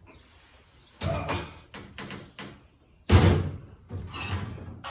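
Knocks and clunks of a heavy 8-inch chrome-plated steel exhaust stack being shifted against a truck's cab and mount. A series of sudden hits, the heaviest about three seconds in.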